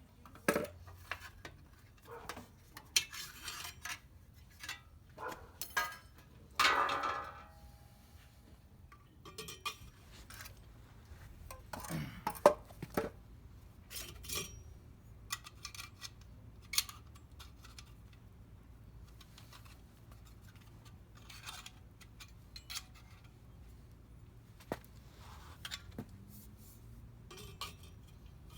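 Irregular metallic clinks, knocks and clatters of hand tools and exhaust parts being handled while a motorcycle's stock exhaust is taken off. There is a longer ringing clatter about seven seconds in and a sharp knock near the middle.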